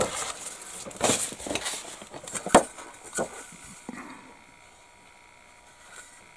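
Plastic kit packaging crinkling and rustling with a few sharp clicks as a plastic model kit part is handled, over the first three or four seconds.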